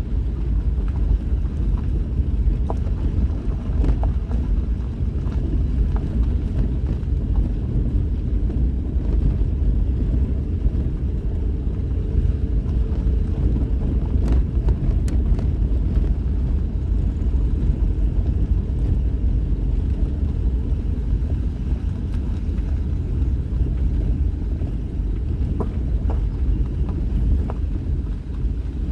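Vehicle driving along a back road: a steady low rumble of engine and tyres, with a few small knocks and rattles scattered through.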